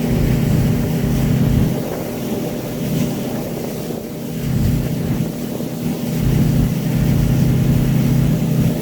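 Speedboat engine running while the boat is under way, a steady drone with rushing noise over it. It eases for a couple of seconds and then grows strong again from about the middle.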